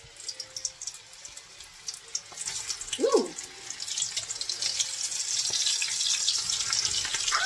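Breaded chicken pieces frying in hot oil in a pan: the sizzle and crackle pick up about two seconds in and keep growing louder as more pieces are laid in. A brief voice sounds about three seconds in.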